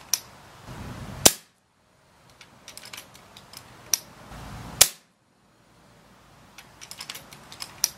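FX Impact PCP air rifle fired twice, a sharp crack about a second in and another near five seconds in. Before each shot come a run of small clicks and a sharper click as the rifle is handled between shots.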